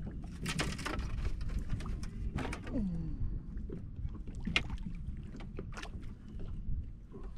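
Small waves slapping against a bass boat's hull, with wind on the microphone. A few short splashes and knocks come as a hooked bass is fought at the boat's side and lifted out by hand.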